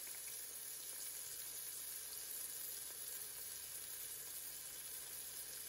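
Olive oil gently sizzling around diced onions and peppers in a cast iron Dutch oven, a steady, faint hiss.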